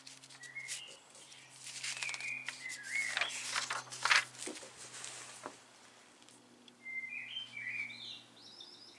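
Paper instruction booklet being handled and a page turned over, a crackly rustle that is loudest around the middle. A bird chirps in short runs of notes near the start and again near the end.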